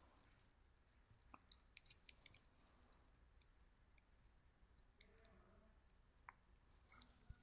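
Faint, irregular clicks of a computer mouse, over near silence.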